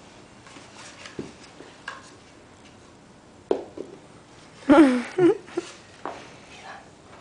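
Light scattered taps and clicks on a hardwood floor as a kitten bats a grape around. A short vocal sound, rising and falling in pitch, comes about five seconds in and is the loudest thing heard.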